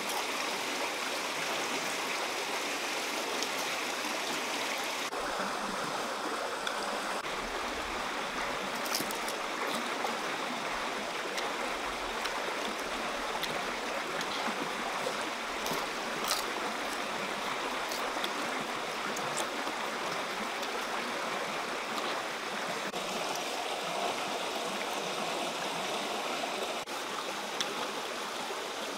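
Steady rush of flowing stream water, with a few short clicks heard over it.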